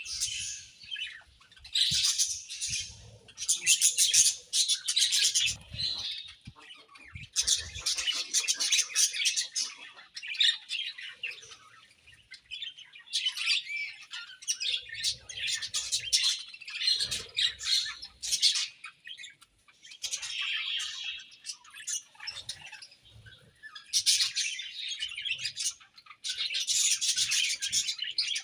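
Budgerigars chirping and warbling in rapid, busy bouts with short pauses, several birds at once.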